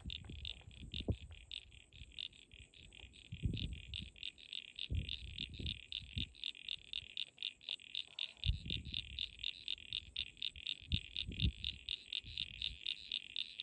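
Froglets calling in a fast, even train of high-pitched pulses, several a second, which the hiker takes for Crinia parasignifera and Crinia signifera (common eastern froglet, the 'bop, bop, bop' call). Occasional low thumps on the microphone come and go.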